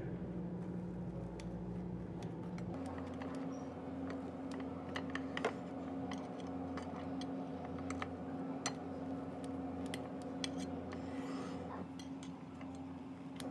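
Cafe work sounds: scattered light clicks, taps and clatter of cups and utensils over a steady appliance hum. The hum shifts in tone about three seconds in.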